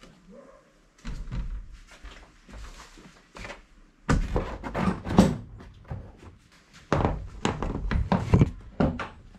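Motorcycle seats being set back onto the bike and pushed into place: a run of clunks and knocks. The heaviest come about four to five and a half seconds in and again around seven to eight and a half seconds.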